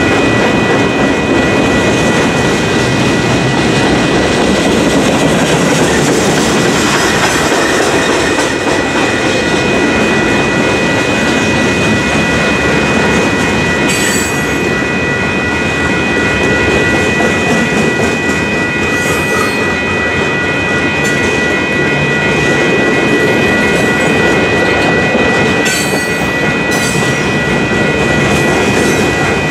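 Freight cars of a manifest train rolling through a grade crossing, their wheels clattering over the rails, while the crossing's WCH electronic bells ring steadily. Brief high wheel squeals come midway and again near the end.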